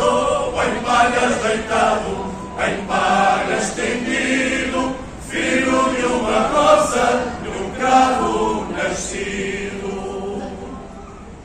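Men's group singing a Reis (Azorean Epiphany carol) in chorus in long drawn-out phrases, with acoustic guitars accompanying; the singing dies away near the end.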